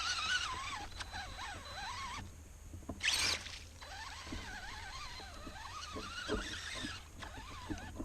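RC mud truck's electric motor whining, its pitch rising and falling with the throttle, as the truck churns through mud. It cuts out briefly twice, and there is a short splashy burst just after three seconds in.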